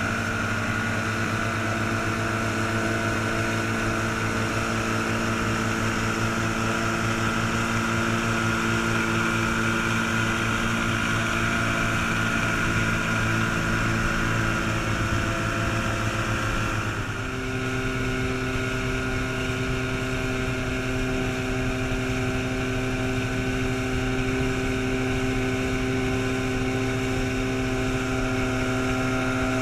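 Antique outboard motors running at steady high speed, with water rushing past the hulls. About halfway through, the engine note drops briefly and then settles at a different steady pitch.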